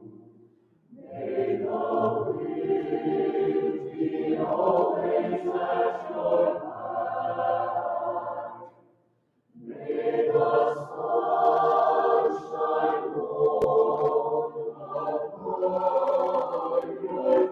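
Mixed choir of men's and women's voices singing in sustained phrases, stopping together twice for a breath: briefly near the start and again about halfway through.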